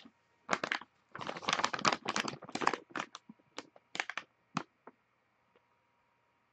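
Clear plastic bag crinkling as it is handled, a run of short, irregular rustles that stops about five seconds in.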